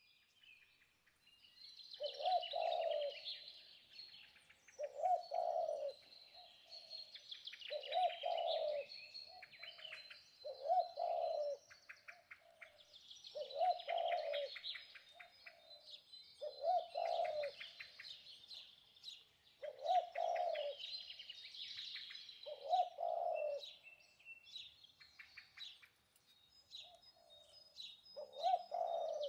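Dense chirping of many small birds, with a low cooing call repeated about every three seconds.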